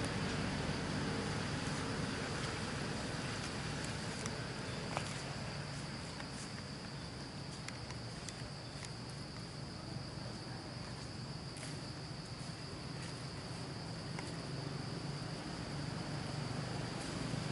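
A steady, high-pitched drone of insects calling, over a low steady hum, with a few faint clicks.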